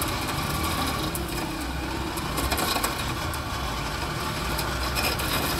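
Off-road 4x4's engine running low and steady as it creeps down a steep descent, with scattered crunches and crackles of dry brush and undergrowth.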